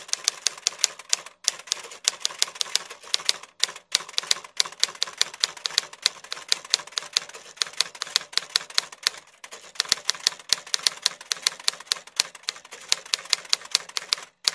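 Typewriter keystroke sound effect: a rapid, even run of sharp clicks, about six a second, paced to text being typed out letter by letter, with a few brief pauses between lines.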